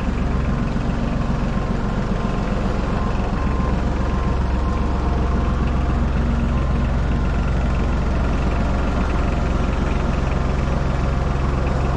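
An engine or heavy machine running steadily nearby, a constant low drone with a faint steady whine above it that thickens a little in the low end about three seconds in.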